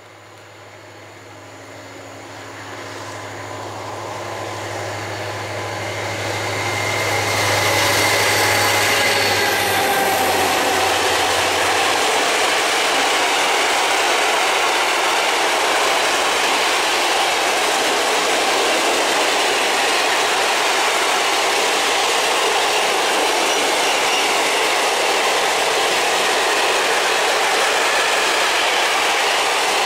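Freight train hauled by an M62M diesel locomotive approaching: the locomotive's engine hum grows louder over the first several seconds and fades by about twelve seconds in. A long rake of open coal wagons then rolls past close by with a loud, steady rumble of wheels on rail.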